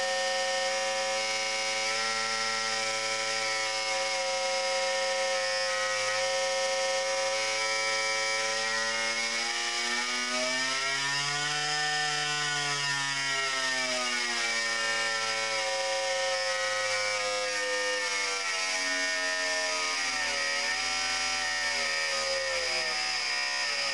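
Servo-hydraulic test machine shaking a clamped thin strip, giving a steady buzzing hum with many overtones. Its pitch rises and falls back about halfway through, and wavers again near the end, as the drive frequency is swept. The strip shakes hard while it is driven at its resonant frequency and stops visibly vibrating once the drive moves off resonance.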